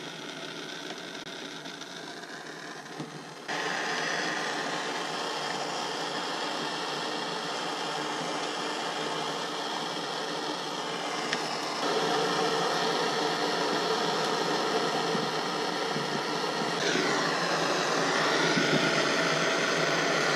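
Propane hand torch burning with a steady hiss as it heats an aluminium AC condenser fin for soldering. It gets suddenly louder about three seconds in and again about twelve seconds in, and its tone wavers near the end.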